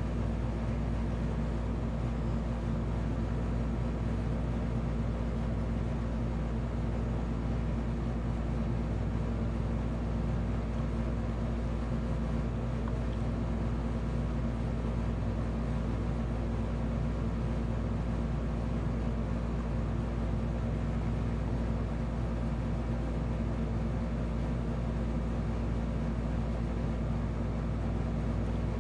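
A steady low machine hum with several steady tones in it, unchanging throughout.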